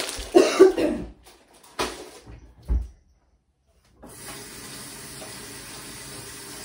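Short handling noises and a couple of knocks on the worktop, then from about four seconds in a kitchen tap running steadily into the sink.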